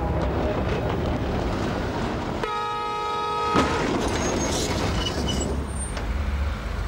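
Tram horn blaring one held note for about a second over the steady low rumble of the tram, cut off by a single sharp knock, followed by a few brief high squeaks.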